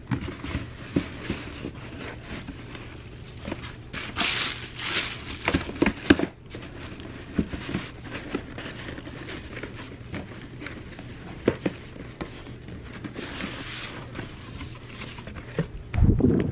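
Cardboard knocking and scraping as a shoebox is packed into a cardboard shipping box, with plastic crinkling and a louder rustle about four seconds in. Near the end, wind buffets the microphone.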